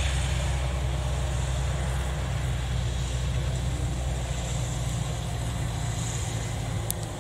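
Engine of a small farm hauling cart loaded with rice bags, running steadily with a low hum that eases a little toward the end.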